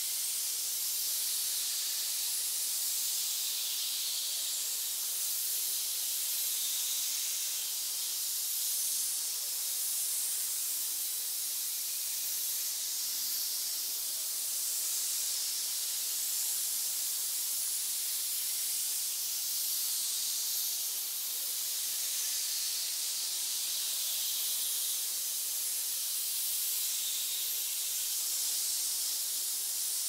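Many snakes hissing at once: a dense, steady wash of overlapping high hisses, single hisses swelling and fading within it.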